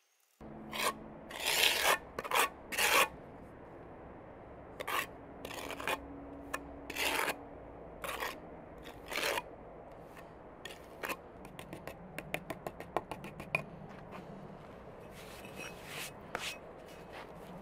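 A small metal tool scraping across a firebrick's top through a layer of white mortar, scoring grooves into it. There are a few strong strokes early, then a quick run of short strokes past the middle.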